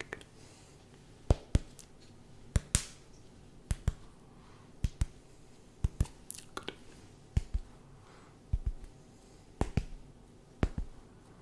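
Finger snaps close to the microphone, mostly in quick pairs about once a second, with brief swishes of the hand moving between them. These are the snaps of a hearing check in a cranial nerve exam.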